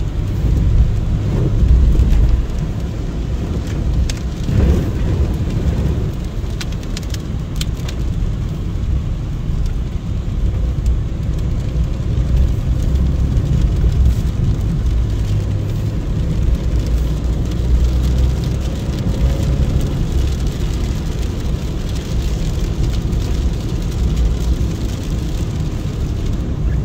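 Heavy rain pouring down in a thunderstorm, with a deep continuous rumble underneath and a few sharp ticks about seven seconds in.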